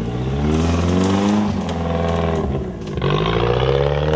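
Off-road 4x4's engine revving: it climbs in pitch and holds, drops away about three seconds in, then revs up again.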